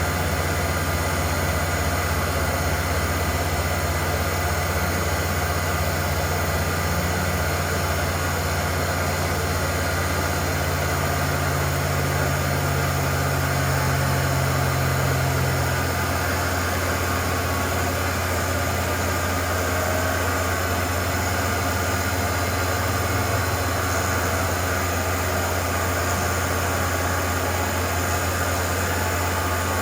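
CNC milling machine running steadily with a low hum and a whine, cutting with a single-flute carbide bit. A second low tone drops out about halfway through.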